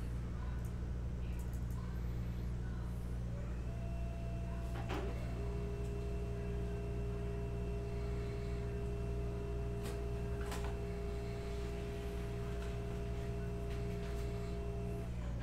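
Samsung M2020 laser printer running a print job: a steady whine starts about four seconds in and stops shortly before the end, with two sharp clicks along the way, over a constant low hum.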